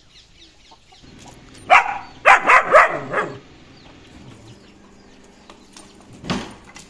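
Several short, sharp animal calls in quick succession about two seconds in, then a brief louder burst near the end.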